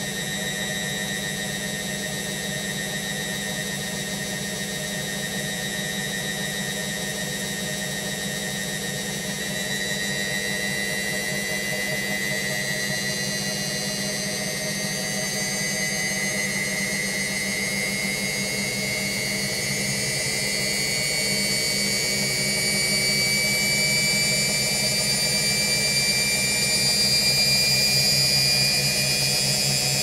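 Washing machine running: a steady low motor hum under a high whine that rises slowly in pitch and grows a little louder through the second half.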